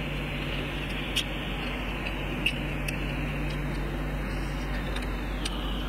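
A steady hiss with a low hum underneath, and a few faint, sharp clicks of eating scattered through it.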